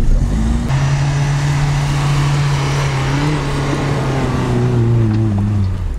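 Mitsubishi Pajero iO's engine running hard under heavy load while climbing a slope of deep dry sand, its pitch slowly falling over several seconds as the revs sag.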